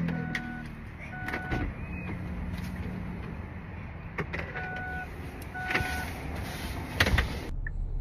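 A car's electronic warning beeps, four short beeps in two pairs about a second apart, over clunks and handling knocks as the rear car door is closed, with a sharp knock near the end as the loudest sound.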